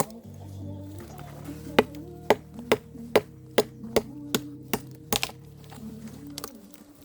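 Background music: a sustained low bass line that shifts pitch every few seconds, under sharp, evenly spaced percussive clicks about two to three a second.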